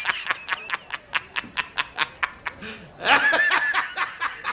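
A person snickering in quick, evenly spaced laughs, about five a second, breaking into a louder high-pitched laugh about three seconds in.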